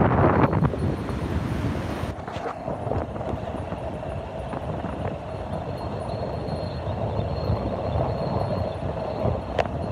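Surf breaking along a sandy beach, a steady wash of waves, with wind buffeting the phone's microphone loudly in the first second or so before it settles.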